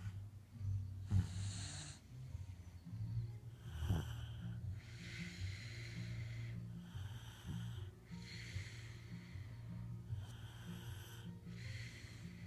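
Snoring: slow, rhythmic breaths over a low, rattling drone, with a hissy breath every couple of seconds.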